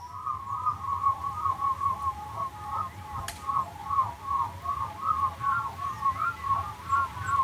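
A steady run of short chirping animal calls, several a second and all at about the same pitch, over a low rumble.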